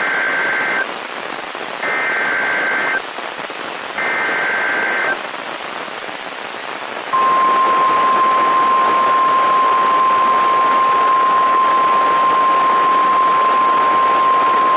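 Emergency Alert System signal on a weather radio: three warbling bursts of SAME digital data tones, each about a second long and a second apart, then from about seven seconds in a single steady high tone, the 1050 Hz warning alarm tone, all over radio static hiss. It signals the start of a new weather warning broadcast.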